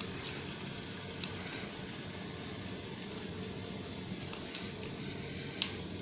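Small Lego electric motors of a remote-control toy car running steadily with a hissy whir as it drives, with a few light clicks.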